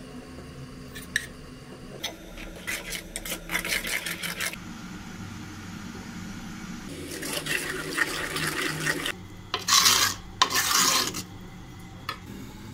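Steel ladle stirring and scraping thick mashed saag against the inside of a clay pot, in several bouts, loudest near the end.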